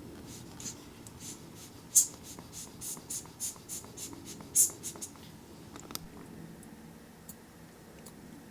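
A wet watch dial being dried off: short, soft hissing strokes come at an irregular pace for the first five seconds or so, then give way to a few faint ticks.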